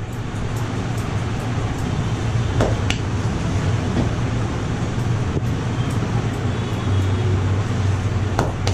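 Steady low rumble of road traffic and wind on the microphone, with a few scattered sharp taps.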